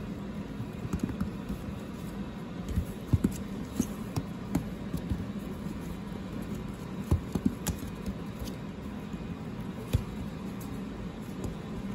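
Scattered soft taps and rustles from a tiny Poodle–Chihuahua mix puppy pawing and nibbling at a hand on a cloth-covered floor, over a steady low room hum. The sharpest taps come about three and four seconds in, again around seven seconds, and once near ten seconds.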